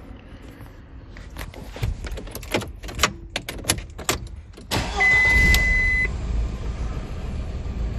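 Several scattered clicks and knocks, then about five seconds in the 1999 VW Passat 1.8T's turbocharged four-cylinder engine starts and runs on at a steady idle, with a one-second beep as it catches. The engine now starts after a faulty relay was found and replaced.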